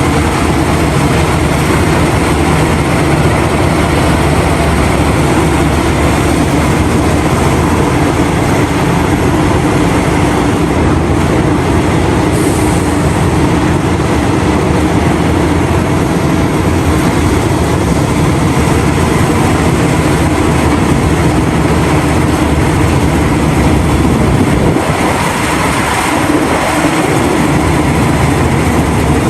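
Heavy diesel engines of Liebherr R974 mining excavators and haul trucks running steadily under load as the excavators dig and load overburden.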